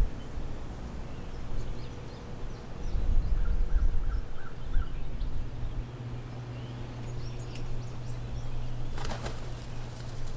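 Strong wind rumbling on the microphone, with birds calling faintly over it, including a quick series of five short notes a few seconds in. A steady low hum joins about halfway through, and a cluster of clicks comes near the end.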